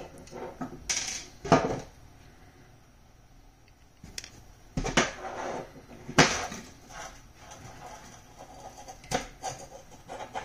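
Hands handling a small metal-cased fiber-optic receiver and the green plastic SC/APC connectors of a patch cord, with dust caps coming off: scattered clicks and knocks, the sharpest about 1.5, 5 and 6 seconds in.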